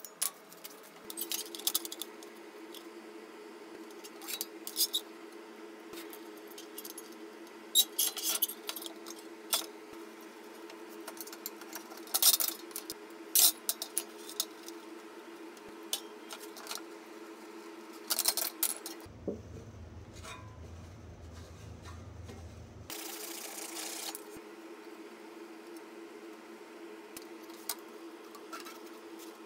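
Scattered light metallic clinks and knocks from sheet metal, a wooden stick and a locking-plier clamp being handled on a perforated steel work table, over a steady hum.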